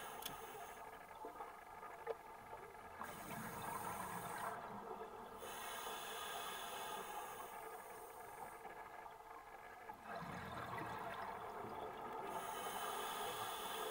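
Scuba diver breathing through a regulator underwater: stretches of hissing inhalation, with two swells of bubbling exhalation about three and ten seconds in.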